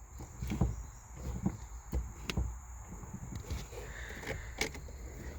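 Brake pedal of a 1995 Ford Expedition being pumped by foot: a string of uneven soft thumps and clicks, several close together in the first couple of seconds and a few more later.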